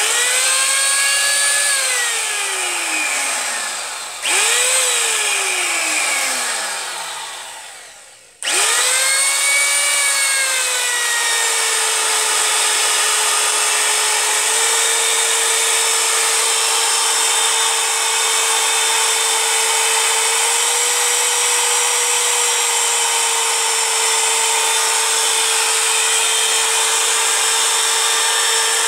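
Katsu compact trim router's motor switched on with a high whine, cut off after about a second and left to spin down, started again briefly and spun down once more, then run steadily. Its pitch steps up only slightly twice as the speed dial is worked, the speed control hardly changing the motor speed.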